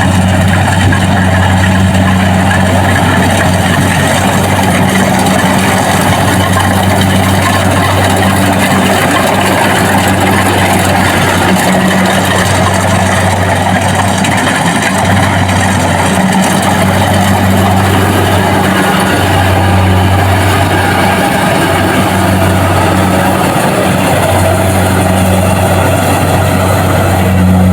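Kubota DC-70 Plus combine harvester's diesel engine running steadily under load, a loud low drone that dips briefly every few seconds, with a dense mechanical noise from the machine above it.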